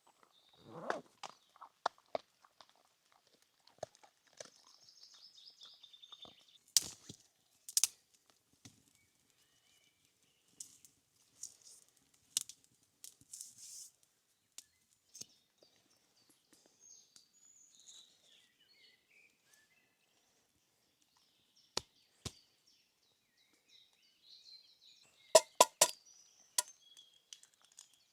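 Sparse sharp snaps and knocks, a cluster of several near the end, with faint bird calls between them.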